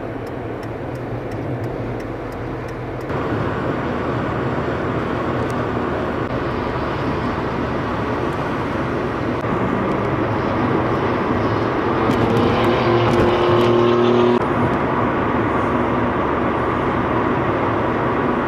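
Kia car being driven: steady engine and road noise, growing louder about three seconds in, with the engine note rising and falling briefly between about ten and fourteen seconds.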